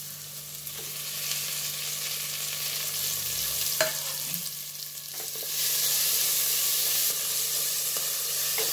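Ginger-garlic and mint-coriander paste frying in hot ghee and oil in a pressure cooker, sizzling as it is stirred with a wooden spatula. The sizzle grows louder a little past halfway, and there is a single knock of the spatula near the middle.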